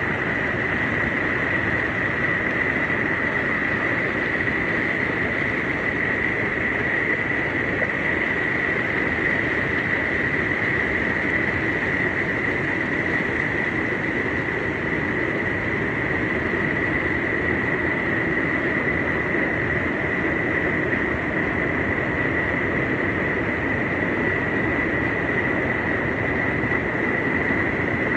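Mountain stream water rushing steadily over rocks in a gorge, a constant even roar with no breaks. A steady high-pitched tone sits over the water throughout.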